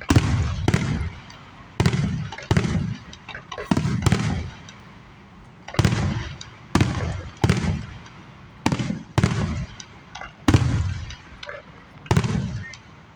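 Fireworks going off in quick, irregular succession: about a dozen loud booms, each followed by a fading echo.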